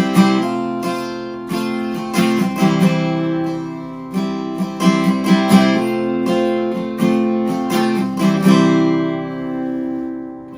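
Acoustic guitar strumming chords in a worship song's instrumental close. The strumming stops about eight and a half seconds in and the last chord is left to ring and fade.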